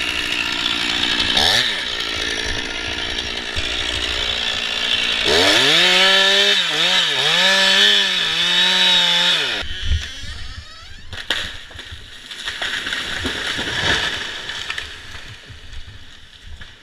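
Chainsaw cutting through a dead ash tree, the engine pitch dipping and rising as it bogs under load, then cutting off about ten seconds in. After that come quieter scattered knocks and rustling, with one sharp knock shortly after the saw stops.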